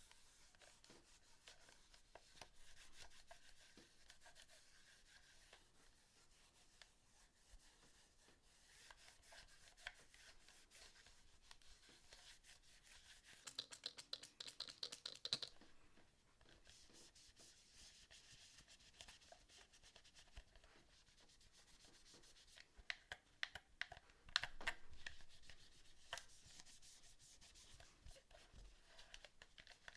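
Rubbing and scratching on the plastic of a PS4 controller as it is cleaned by hand, faint and steady. Twice it turns into brief spells of quick, louder scratching strokes: about midway and again a few seconds before the end.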